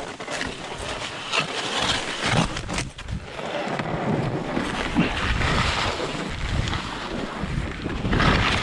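Skis sliding and scraping through soft snow on a steep run, with wind rushing over the microphone. A few sharp clicks and knocks come in the first two seconds.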